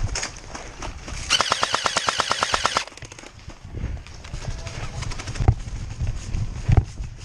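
An airsoft gun fires a full-auto burst of about a second and a half, roughly eleven shots a second. A few single sharp knocks follow later.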